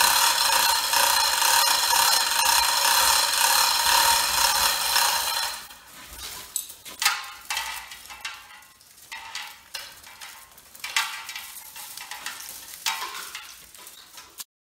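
A loud steady hiss for about the first five seconds. Then the hand chain of a chain hoist rattles and clicks as it is pulled, lifting copper coil bundles out of a generator stator, with the wire scraping and rustling and the sharpest clicks about seven, eleven and thirteen seconds in.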